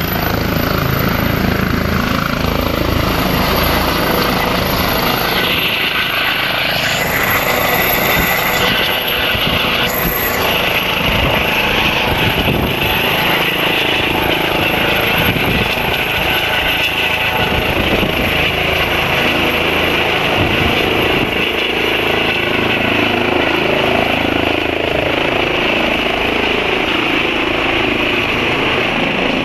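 Eurocopter EC135 (Airbus H135) twin-turbine medical helicopter at take-off power, lifting off and climbing away: loud, steady turbine whine over rotor noise.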